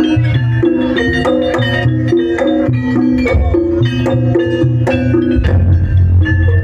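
East Javanese jaranan music played by a gamelan-style ensemble: struck metal keys play a quick, repeating melody over drum beats. A deep sustained low note comes in about five seconds in.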